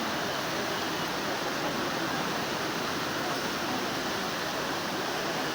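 Floodwater rushing steadily, an even noise with no break.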